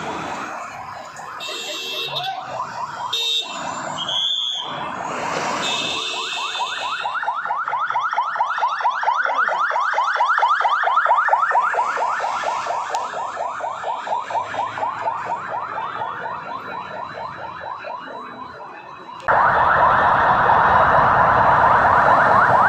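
Ambulance siren sounding a rapid yelp, a fast rising sweep repeated over and over. It gets louder after a cut near the end.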